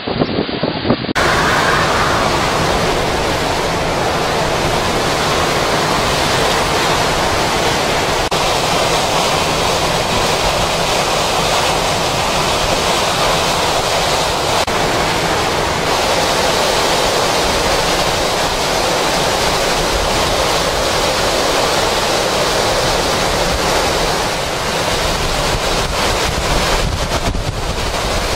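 Hurricane wind with driving rain: a steady, loud rush of noise.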